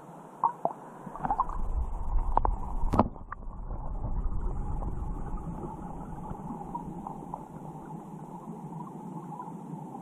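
Creek water heard through a submerged camera: a muffled, low rushing rumble with scattered clicks and knocks, the sharpest about three seconds in.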